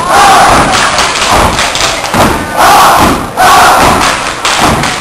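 A step team stepping in unison: rhythmic stomps and claps on a stage floor, with loud shouts in bursts of about a second between them.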